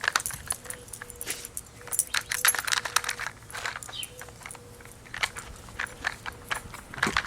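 A dog working a treat puzzle toy: irregular clicks and clacks as the toy's bones, lids and sliding compartments are flipped and pushed about.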